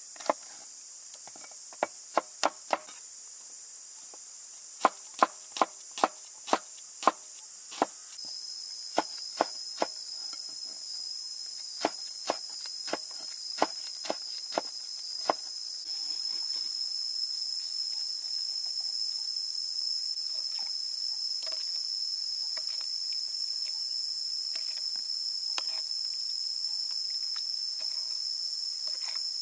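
A cleaver slicing garlic cloves and red chillies on a wooden chopping board: sharp knocks in short runs of a few strokes through the first half, then they stop. Under them a steady high insect chorus, with a thin high whine that comes in about eight seconds in and grows louder once the chopping ends.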